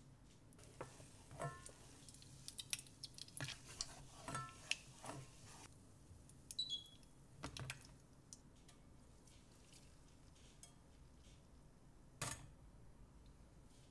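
Faint, scattered taps and clicks of a wooden spoon against a stainless saucepan of browning butter, a few with a short metallic ring. One sharper knock comes near the end, as the pan meets a mesh strainer.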